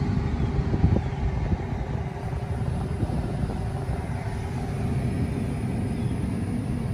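Steady low rumble of road and tyre noise inside the cabin of a slowly moving 2021 Tesla Model 3, an electric car with no engine sound, with a brief thump about a second in.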